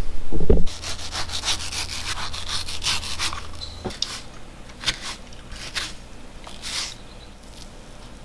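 A knife cutting a mango on a stone countertop: a dull thump about half a second in, then a quick run of scraping strokes as the blade saws through the fruit. A few separate scrapes of the blade follow and die away near the end.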